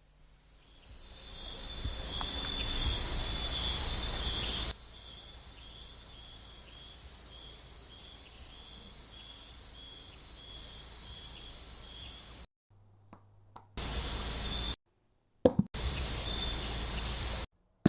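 Insect-like chirring ambience: steady high chirping with rapid pulsing over a low rumble. It is cut abruptly several times, dropping sharply a little under five seconds in, stopping, then returning in two short bursts near the end.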